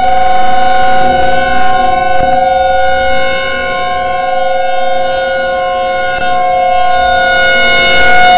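Emergency Alert System attention signal: a loud electronic alert tone held at one steady pitch without a break, marking the start of an emergency alert broadcast.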